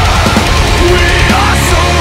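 Loud heavy rock music.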